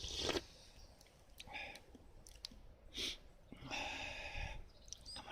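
A person chewing and eating close to the microphone, in a few short bursts with pauses between.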